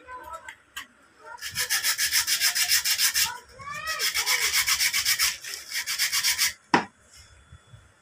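Rapid back-and-forth rubbing strokes in two runs, about eight a second, as a starter motor's overlong carbon brush is worked down to size; a single sharp click follows near the end.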